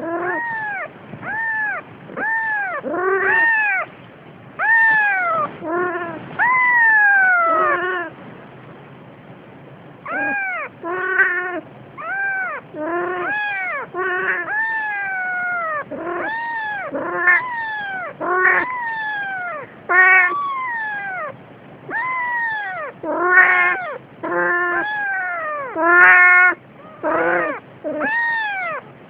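A cat meowing over and over, loud drawn-out calls that rise and then fall in pitch, some short and clipped, with barely a pause between most of them.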